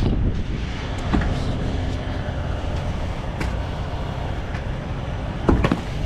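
Semi truck running, a steady low rumble heard inside the cab. It is broken by a few light clicks and a louder short knock near the end.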